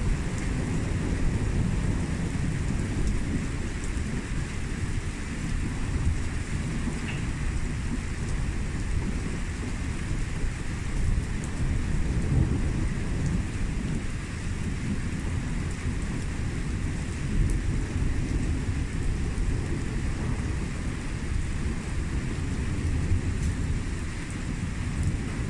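Steady rain during a thunderstorm, with a low, continuous rumble of thunder underneath.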